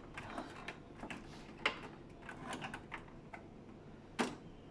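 Light plastic clicks and ticks as a screwdriver pries at the clips of a Fuji Xerox DocuPrint CM225 printer's plastic cover, which is stuck and hard to free. There is a sharper click near the middle and the loudest snap near the end.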